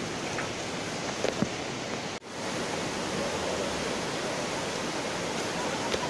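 Steady rushing of a shallow, rocky river, with a sudden brief dropout about two seconds in and a couple of small knocks just before it.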